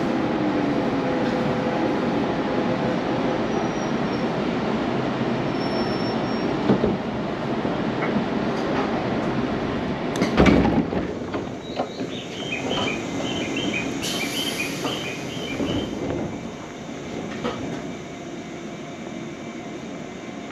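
Local electric train on the JR Agatsuma Line running and slowing as it arrives, with a falling whine and wheel noise. A loud thump about halfway, then a string of short electronic chimes repeating for a few seconds, after which the running noise dies down.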